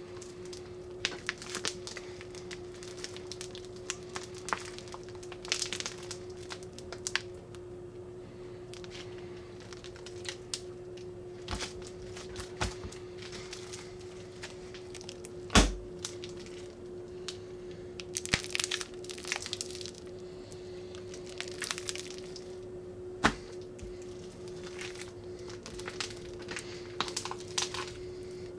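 Gooey slime being squeezed and stretched by hand, with scattered crackles and pops from trapped air, one sharp snap about halfway through, over a steady faint hum.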